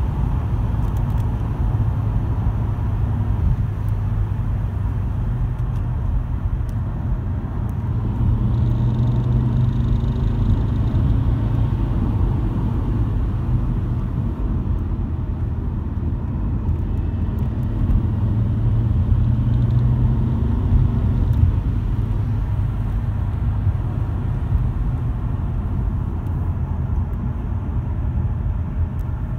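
Car driving with a steady low rumbling drone that swells twice, about a third of the way in and again about two-thirds in, as it accelerates: a vibration noise that comes on under acceleration.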